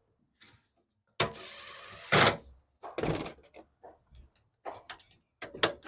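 Work handling noises: a scraping, sliding sound lasting about a second, ending in a loud thunk, then a string of short knocks and clatters.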